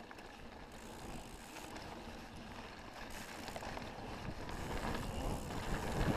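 Wind rushing over the camera microphone and a mountain bike's tyres rolling on a dirt trail during a descent, building up gradually.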